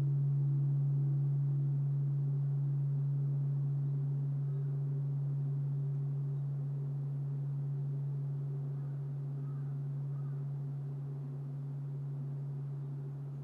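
Large bronze Japanese temple bell (bonshō) humming as it dies away after a strike: one deep steady tone with fainter higher tones above it, one of which pulses and fades out within the first few seconds. No new strike falls here; the hum slowly grows quieter.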